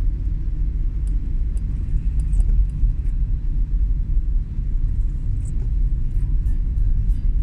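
Steady low rumble of a vehicle on the move, with faint scattered ticks.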